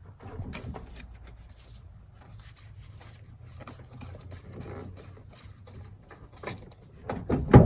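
Light scraping, rubbing and clicking of a broken truck side-mirror assembly being worked loose from the door, with a few louder knocks about seven seconds in. A low hum runs underneath.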